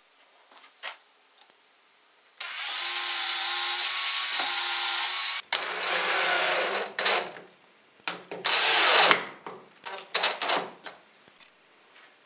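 Cordless drill-driver running in bursts as it drives wood screws through a plywood flange into a plywood disc: one steady run of about three seconds, then two shorter runs, with small clicks and knocks of handling between them.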